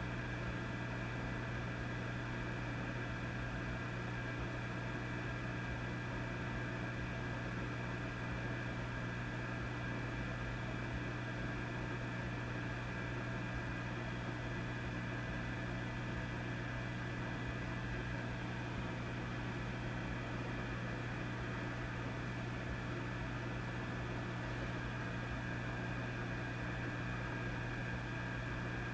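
Vintage tube amplifier humming and hissing: a steady low mains hum with fainter higher tones over a constant static hiss.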